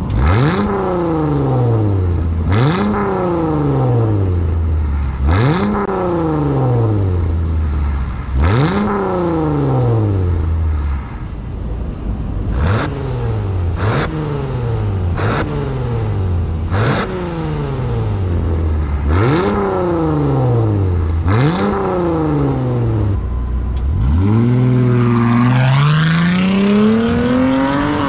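A 2014 Jeep Grand Cherokee's engine is revved in short blips at a standstill through Valvetronic Designs valved mufflers, with the resonator deleted. Each blip jumps up in pitch and falls back: four louder revs with the valves open, then about six quieter ones with the valves closed from about eleven seconds in. Near the end the Jeep pulls away under hard acceleration with the valves open, its engine note rising steadily.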